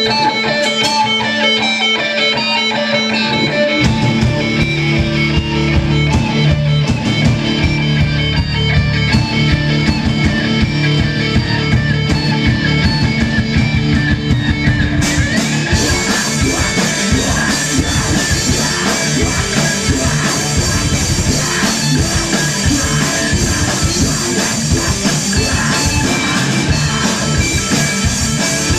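Live rock band playing: electric guitar alone at first, bass coming in about four seconds in, then the full drum kit with cymbals joining about fifteen seconds in.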